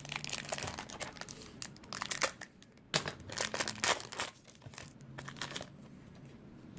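Baseball card pack wrapper being torn open and crinkled by hand, in irregular crackling bursts that are loudest around the middle and fade toward the end.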